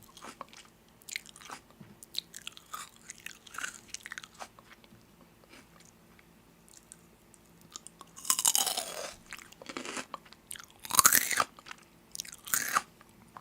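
Close-up chewing and crunching of crisp food: soft crackling bites through the first half, then three louder crunches in the second half.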